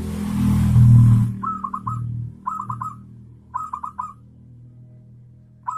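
A loud rushing noise with a low hum over the first second or so, then four quick clusters of four or five rapid falling notes: a zebra dove (perkutut) giving its rattling 'kerot' coo, the last cluster near the end.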